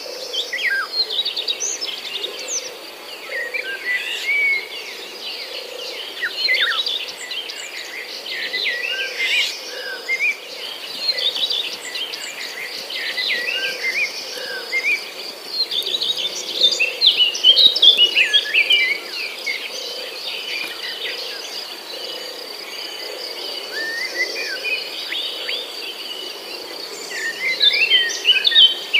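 Many birds chirping and twittering in quick short calls, over a steady high insect trill; the chirping grows busier a little past the middle and again near the end.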